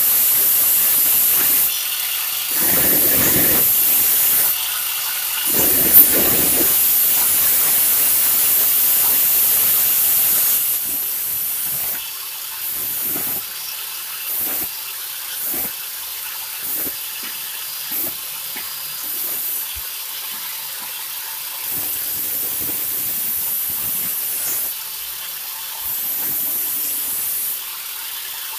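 Electric angle grinder running, its abrasive disc grinding the steel of a kerambit blade to sharpen its blunt upper edge, a high hissing grind. It is steady for the first ten seconds, then comes in short, repeated touches about once a second, with one sharp click about six seconds in.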